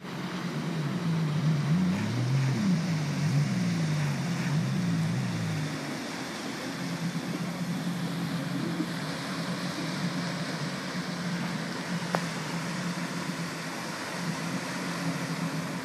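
Jet ski engine running at low speed, its pitch rising and falling for the first six seconds or so, then holding steady, over the wash of small waves and wind.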